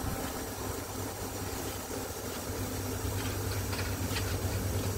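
A StreetLite bus's Mercedes-Benz diesel engine idling steadily with a low, even hum. A few light clicks come in the second half.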